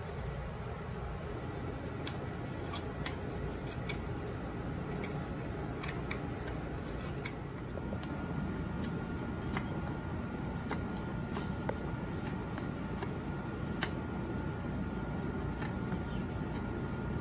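Carving knife cutting into a pine spoon blank: irregular short clicks and scrapes of the blade taking off wood, several a second at times, over a steady background hum.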